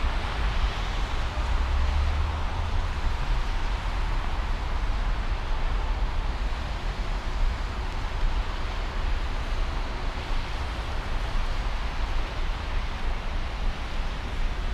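Steady city street ambience: a constant low rumble and hiss of traffic, with no single event standing out.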